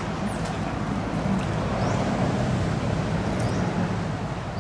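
Steady low hum of a running motor or engine, with a few faint short high chirps over it.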